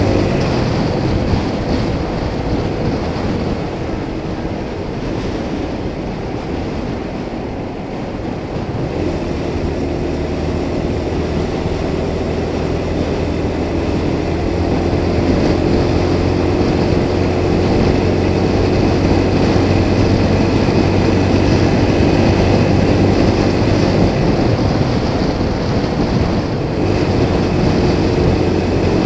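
Motorcycle engine running steadily at cruising speed with wind rushing over the microphone, growing a little louder from about eight seconds in.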